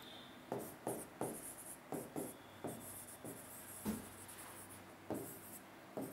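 A pen writing words by hand on a board: a quick run of short, faint scratching strokes and light taps, one for each pen stroke.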